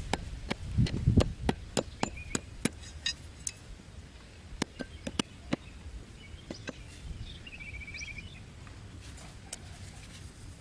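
Irregular sharp clicks and taps, thickest in the first half, with a low thud about a second in and a short rapid chirping trill about eight seconds in.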